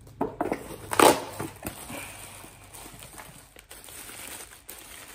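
Cardboard mailer box being opened and handled, with two loud rustles in the first second or so, then the softer crinkling of a plastic parts bag being lifted out.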